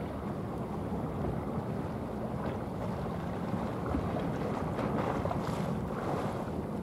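Steady low rumbling rush of a passing cargo ship and its bow wave, mixed with wind on the microphone. A couple of faint brief swells stand out about two and a half and five and a half seconds in.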